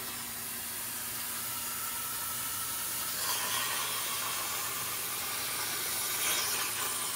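Langmuir Systems CrossFire XR CNC plasma torch cutting steel plate: a steady hiss of the plasma arc and its air stream.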